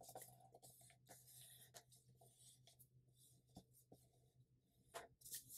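Faint, scattered rustling and scraping of a folded sheet of paper being flattened and creased by hand on a cutting mat, a little louder about five seconds in, over a low steady hum.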